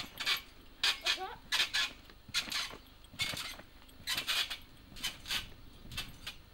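Trampoline springs creaking and jangling as a child bounces on the mat, in a regular rhythm of short metallic clinks about every three quarters of a second, often in pairs.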